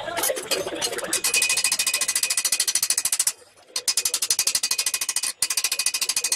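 Rapid, even hammer tapping on a steel gauntlet plate over an anvil, many light blows a second, the way the knuckles are teased into shape. The tapping starts about a second in and breaks off briefly twice.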